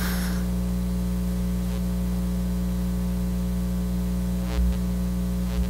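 Steady electrical mains hum in the sound system, a low buzz with its overtones, with a couple of soft low bumps near the end.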